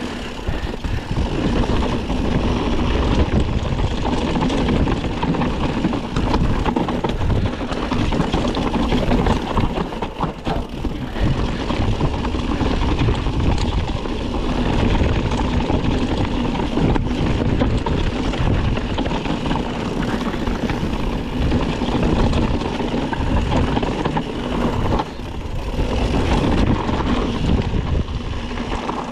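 Mountain bike riding at speed: knobby tyres rolling over a dirt and gravel trail, with wind rushing over the camera microphone.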